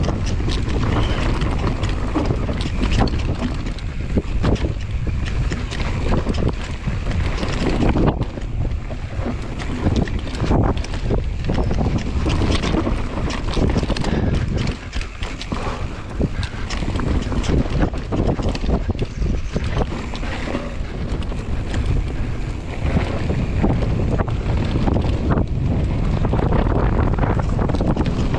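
Wind buffeting the microphone of an action camera on a mountain bike descending a dirt trail, with the tyres running over dirt and frequent knocks and rattles from the bike over roots and bumps.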